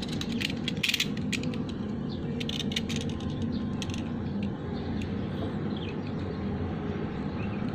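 Automatic wire stripper clicking and snapping as its spring-loaded jaws grip and strip a charger cable's insulation, in a cluster of sharp clicks over the first few seconds, then sparser. A steady low hum runs underneath.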